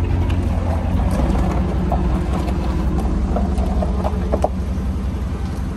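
Dodge Charger Scat Pack's 6.4-litre 392 HEMI V8 idling with a steady low rumble.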